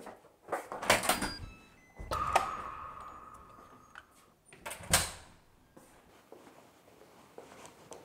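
Apartment entrance doors being opened and shut: clicks and knocks with a short run of electronic beeps, then the door shutting with a loud thud about five seconds in.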